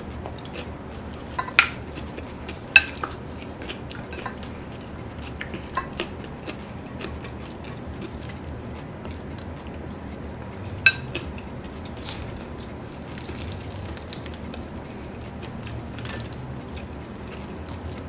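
Scattered light clinks and taps of utensils against dishes over a steady low background hum, with a few sharper clinks near the start and one about eleven seconds in.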